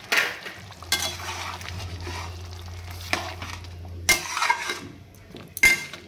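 Slotted metal spatula stirring a watery curry in a metal kadai, with several sharp scrapes and knocks of metal on the pan over a wet, slushing background.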